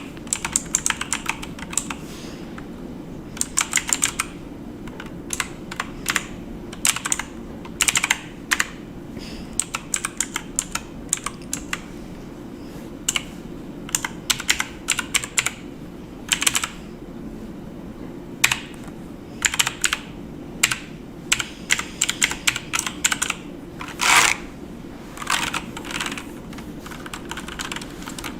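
Typing on a computer keyboard: irregular runs of sharp key clicks broken by short pauses, over a steady low background hum.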